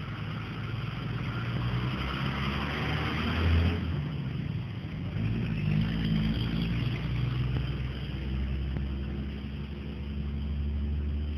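A motor vehicle running steadily, with a low engine rumble and road noise, briefly louder about three and a half seconds in.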